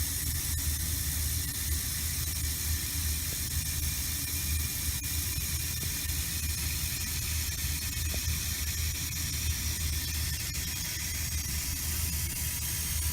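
Cold tap water running steadily into a humidifier's water tank as it fills.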